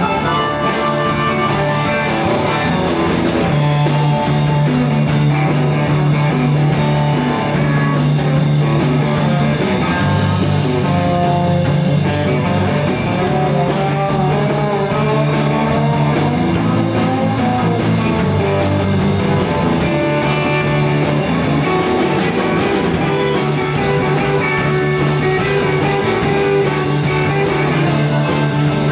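Live 1950s-style electric blues band playing an instrumental passage: electric guitars, upright bass and drums, with amplified harmonica.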